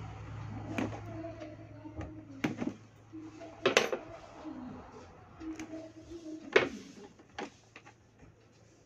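Handling noise from wires and small parts being worked on a speaker cabinet: scattered sharp clicks and knocks, the loudest about four and six and a half seconds in. A low steady hum runs under the first few seconds and then stops.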